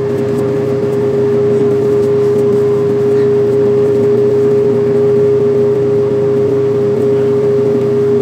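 Steady hum of a small electric motor, holding one pitch without change, with a lower drone beneath it.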